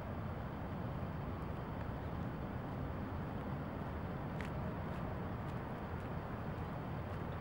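Steady low rumbling background noise, with one faint click about four and a half seconds in.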